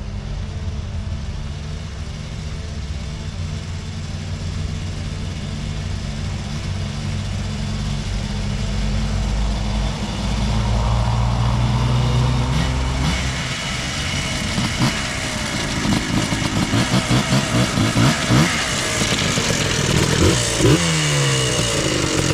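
Yamaha Blaster 200 big-bore single-cylinder two-stroke ATV engine running steadily, then from about two-thirds of the way in revved repeatedly, its pitch rising and falling with each blip of the throttle.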